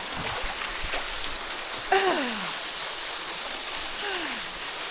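Small waterfall pouring into a rock pool, a steady rushing splash. A short falling vocal sound comes about two seconds in, and a fainter one near the end.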